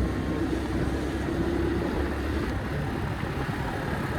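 Bajaj Pulsar NS125's single-cylinder engine running steadily, with the odd 'kit kit kit' ticking that the owner takes for tappet noise still present after the service.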